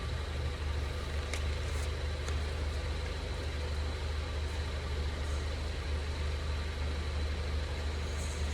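Steady low road-and-drivetrain rumble heard inside the cabin of a 2020 Ford Mondeo wagon, with a few faint ticks between one and two and a half seconds in.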